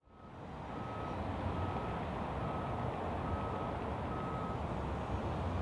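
A ground vehicle's back-up alarm beeping five times at an even pace, stopping about four and a half seconds in, over the steady low running of a vehicle engine. The sound fades in at the start.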